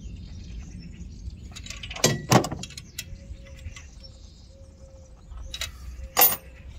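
Metal clinks and taps of a small spanner and pliers working the rocker-arm adjusting screw and locknut on a Peugeot TU engine's valve gear, during a valve-clearance adjustment. Two sharper clacks come a little after two seconds, and two more near the end.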